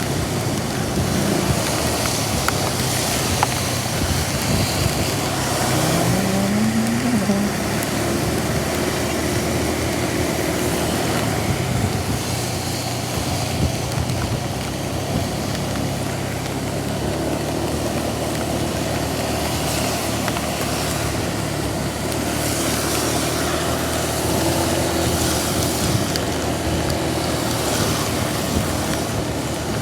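Road vehicle engines running under a steady hiss of heavy rain and wet road noise, with one engine rising in pitch briefly about six seconds in.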